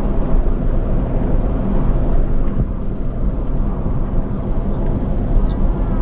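Steady road and tyre noise inside the cabin of a Mitsubishi i-MiEV electric car driving along a road, with a few faint bird chirps near the end.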